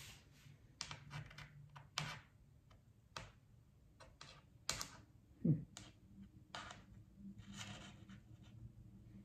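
Small pieces of tumbled glass clicking and tapping as they are picked up and set down one by one onto a glass pane, with light rustling between the clicks. A short low thud about halfway through is the loudest sound.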